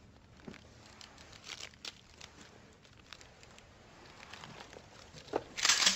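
Books being handled and reshelved: scattered light knocks and rustling, with a louder brushing rustle near the end.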